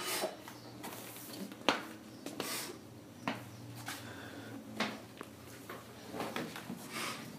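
A shopping bag rustling in irregular bursts as it is handled and carried, with a sharp knock about a second and a half in, over a low steady hum.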